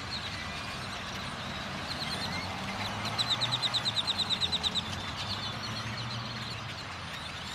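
A large flock of great-tailed grackles calling all at once, a dense chattering chorus. About three seconds in, one bird gives a rapid series of high clicking notes, about ten a second, for a second and a half. A low steady rumble runs underneath.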